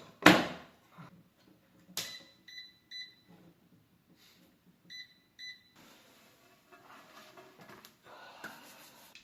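Two sharp knocks, one at the start and one about two seconds in, then two pairs of short high electronic beeps, the pairs about two and a half seconds apart. Faint rubbing and scraping near the end.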